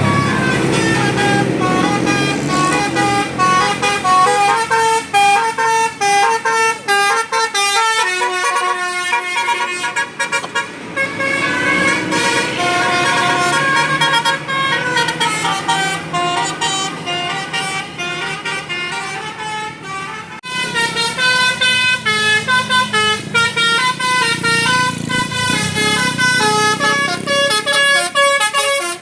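Basuri telolet musical air horn on a bus playing a long melody of stepped horn notes, with a brief break about twenty seconds in. The bus engine runs underneath.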